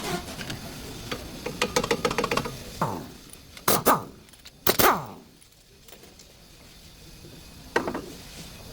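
Hand tools clicking and knocking on metal brake parts: a quick run of clicks about two seconds in, then a few sharp knocks around four and five seconds and one more near the end.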